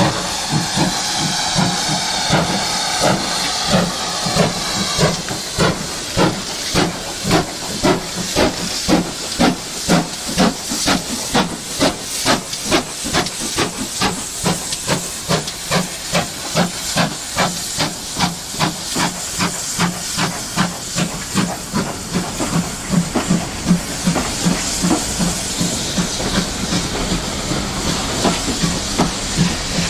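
GWR steam locomotive working away, its exhaust beating steadily at about two beats a second, with a loud hiss of steam over the first few seconds.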